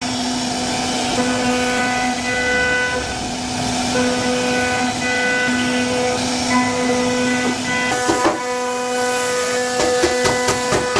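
CNC router cutting wood: a steady machine whine of several held tones over a hiss. Near the end a run of quick, evenly spaced knocks sets in.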